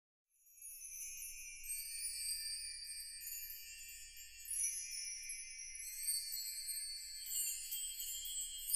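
Music of high tinkling chimes and bells, starting about half a second in and shimmering on without a break.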